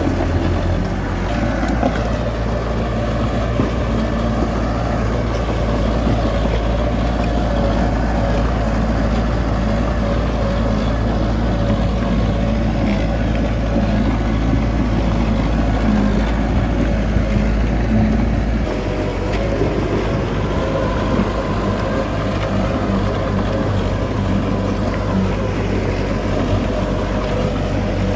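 Heavy diesel engine of earth-moving machinery running steadily under load. Its low rumble changes pitch about 18 seconds in.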